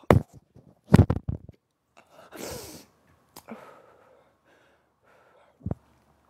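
A woman coughing on cigarette smoke: one sharp cough, then a short run of coughs about a second in, followed by a long breathy exhale. A soft low thump near the end.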